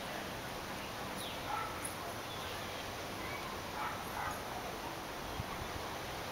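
Steady outdoor background hiss with a few faint, short animal calls, high and sliding in pitch, scattered through it, the clearest about four seconds in.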